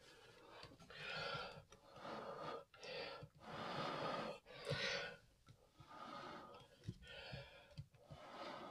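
A person blowing a series of about eight short puffs of breath onto wet acrylic paint on a canvas to spread it out in a pour. Each puff lasts under a second, with short pauses between them.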